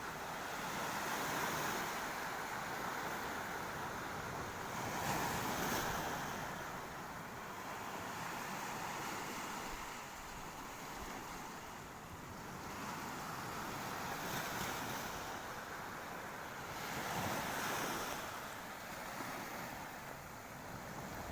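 Sea waves washing onto the shore: a continuous surf that swells each time a wave breaks, every few seconds.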